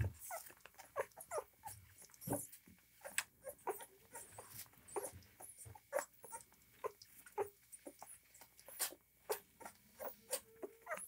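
Eleven-day-old German Shorthaired Pointer puppies suckling from baby bottles: quick, irregular sucking and smacking clicks mixed with small squeaks, one held a little longer near the end.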